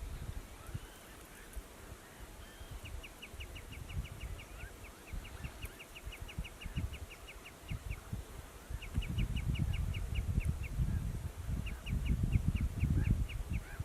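Marsh sandpiper calling: quick runs of short, high notes, about six a second, in four series with brief pauses between. A low rumbling noise grows louder in the second half.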